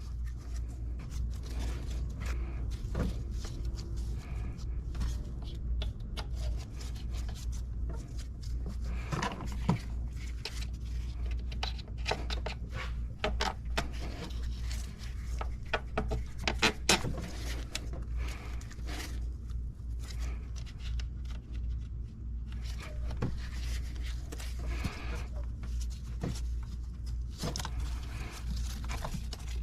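Scattered clicks, clinks and light scrapes of hand tools and engine parts being handled during reassembly, with a louder cluster of metallic clinks about two-thirds of the way through, over a steady low hum.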